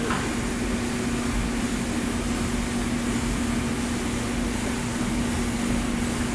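Probat G75 drum coffee roaster running at the green-coffee intake stage: a steady machine hum with a constant low drone under an even rushing noise.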